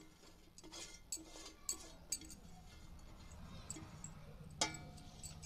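Faint clinks and scrapes of a stainless-steel plate while chopped coriander is pushed off it by hand into a bowl. There is a louder ringing clink about four and a half seconds in.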